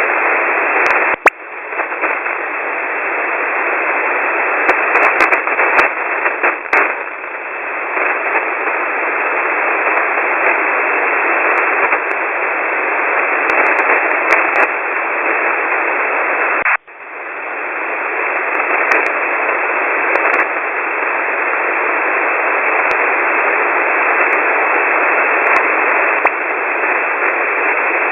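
Shortwave radio static heard through a WebSDR receiver: a steady hiss squeezed into a narrow voice-band passband, with no Morse tone or voice in it. The hiss cuts out briefly about a second in and again about two-thirds of the way through.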